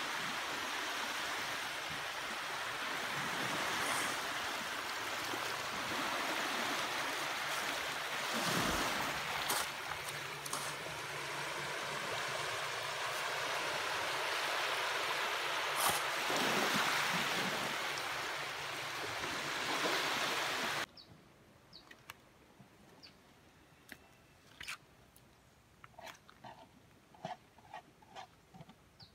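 Small sea waves lapping and washing on a rocky shore: a steady rushing wash that cuts off abruptly about two-thirds of the way through. After that it is much quieter, with scattered short ticks and clicks.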